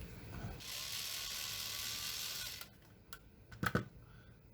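Mechanical rasping from printer parts being worked by hand, steady for about two seconds, then a few sharp clicks.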